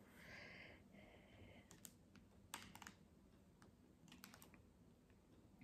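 Near silence, broken by faint, scattered clicks and taps, a few in quick clusters, as a compact makeup palette and its packaging are handled.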